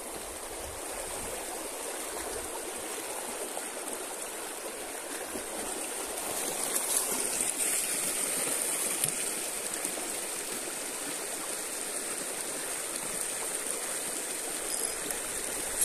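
Stream water running, a steady rush that grows a little louder about six seconds in.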